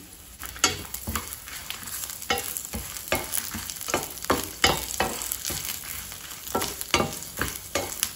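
Wooden spatula scraping and tapping against a stainless steel pan in quick, irregular strokes as dried red chillies, curry leaves, garlic, black pepper and cumin are stirred while roasting, over a light sizzle from the little oil in the pan.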